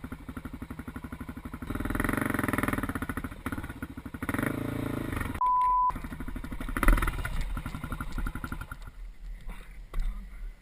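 A vehicle engine running with an even pulsing note, growing louder about two seconds in and dying away near the end. A short steady electronic beep, about half a second long, cuts in about five and a half seconds in.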